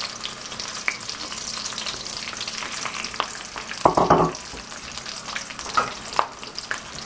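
Stuffed green chilies sizzling and spitting in hot oil in an aluminium wok, with many sharp crackles from the cumin and mustard seeds frying in it. There is a brief, louder clatter about four seconds in.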